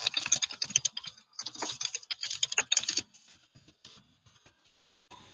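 Computer keyboard typing: two quick runs of keystrokes, then a few scattered taps from about three seconds in.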